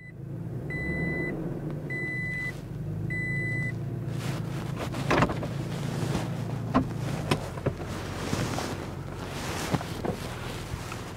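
Toyota Tacoma pickup idling steadily through a side-exit exhaust. Three short electronic beeps sound about a second apart near the start, and sharp clicks and knocks follow later.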